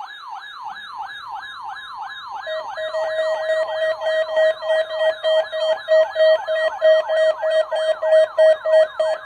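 NOAA Weather Radio warning alarm device sounding a test alarm: a fast, repeating siren-like sweep, about two to three sweeps a second. About two and a half seconds in, a pulsing beep joins it, and the alarm grows louder.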